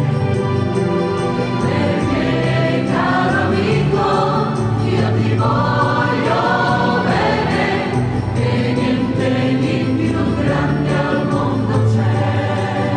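A choir of women's voices singing, with held notes throughout.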